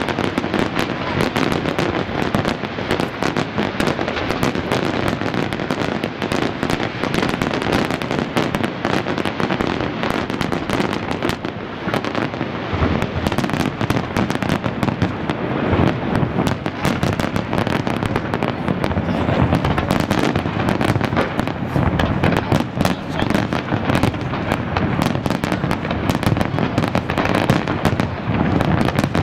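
Large fireworks display: aerial shells bursting in a dense, unbroken barrage of bangs and crackles.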